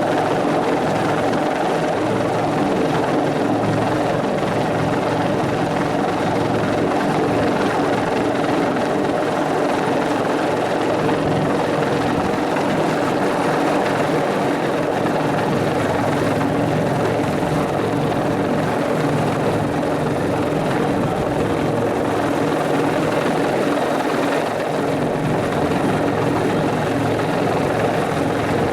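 Bell 412 helicopter's twin turboshaft engines and four-blade main rotor running steadily in flight, a continuous rotor and turbine sound with no change in level.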